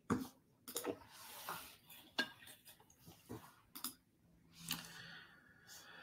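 Handling noises at a computer desk: several sharp clicks and clinks about a second apart, with brief rustling between them. A low steady hum comes in about four seconds in.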